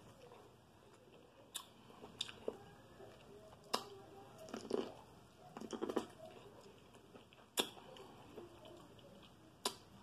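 A person biting kernels off an ear of corn on the cob and chewing, with several sharp short clicks between soft mouth sounds.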